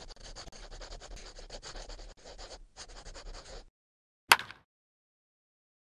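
Handwriting sound effect: a pen scratching across paper in quick strokes while a script logo is written, stopping after about three and a half seconds. About a second later comes one short, sharp swish, the loudest sound here.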